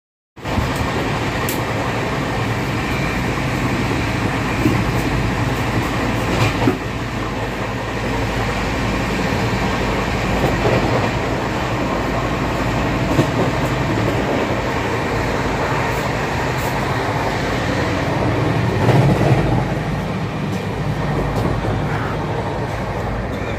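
Running noise inside a moving Rajdhani Express coach: a steady rumble and hum with a few sharp clicks and knocks from the wheels and fittings.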